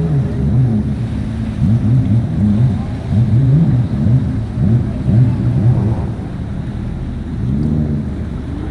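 Motorboat engine running, its pitch rising and falling over and over in short swells, then settling into a steadier drone after about six seconds, over a wash of wind and water noise.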